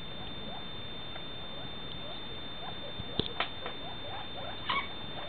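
Quail calling with soft, short notes over a steady hiss and a faint high-pitched whine. There are a few sharp clicks about three seconds in and a louder call near the end.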